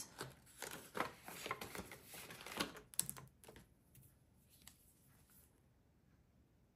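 Paper bills and a binder's cash envelope rustling and crinkling as money is handled and tucked away, with a sharp click about three seconds in, followed by a few faint marker strokes on paper.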